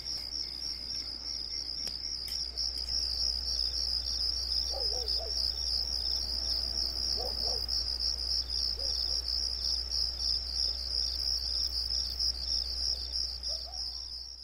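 Crickets chirping in a steady, rapidly pulsing high trill, a continuous night-time insect chorus, with a low steady hum underneath.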